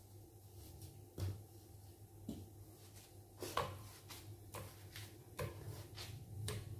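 Chunks of watermelon dropped by hand one at a time into a blender jar: about six soft knocks, roughly a second apart.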